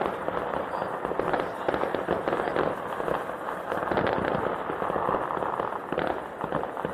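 Fireworks going off in a dense, continuous run of rapid bangs and crackles, with no pauses.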